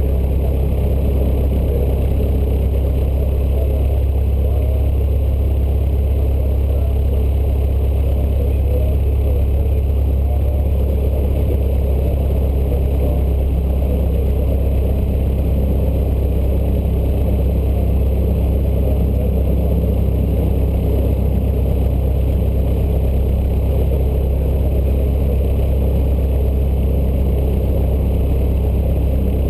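Cessna 152's four-cylinder Lycoming piston engine and propeller running steadily at low power, heard from inside the cabin as an even, loud low hum.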